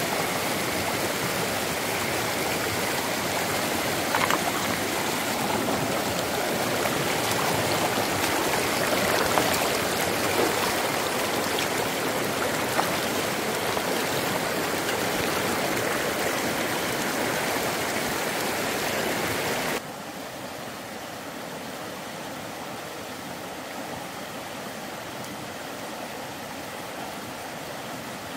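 Running water flowing steadily, like a stream, with a few faint knocks. About two-thirds of the way through it drops suddenly to a quieter, steady hiss.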